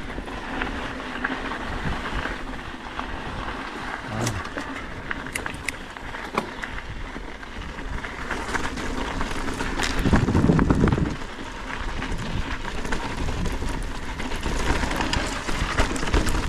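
Mountain bike rolling down a loose volcanic-soil trail: tyre crunch and hiss over grit, with scattered clicks and rattles from stones and the bike. A louder low rumble comes about ten seconds in.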